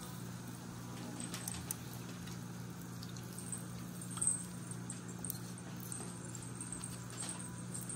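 Plastic spoon scraping and tapping against a pot while sticky glaze is spooned onto a ham: a few soft clicks and wet plops, the loudest about four seconds in, over a steady low hum.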